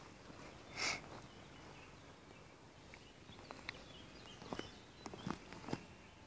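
Quiet woodland walk sounds: a short hissing rustle about a second in, then a run of sharp clicks and cracks like steps snapping twigs and litter on a forest path. Faint bird calls are in the background.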